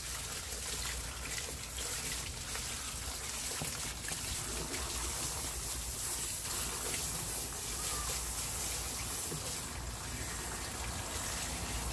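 Water from a garden-hose spray nozzle running steadily over a wet dog's coat and splashing into a plastic tub as he is rinsed.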